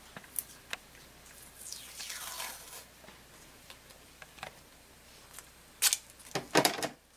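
Masking tape pulled off its roll with a rasping sound that falls in pitch, then sharp ripping sounds near the end as a piece is torn off, with small handling clicks throughout.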